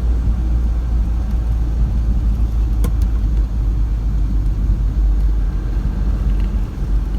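Steady low rumble of a road vehicle driving, with a couple of faint clicks about three seconds in.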